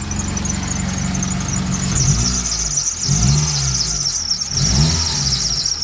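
2003 Mitsubishi Eclipse engine running and blipped three times, with a high-pitched squeal from the alternator area: chirping at first, then a steady squeal while revving that cuts out near the end. The mechanic takes it for the alternator drive belt.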